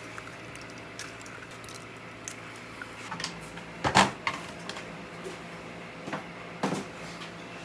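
Kitchen handling knocks over a steady low hum: a stainless steel bowl of cracked eggs set down on a steel worktop with a knock about four seconds in, and another, lighter knock a few seconds later as the cook reaches under the counter.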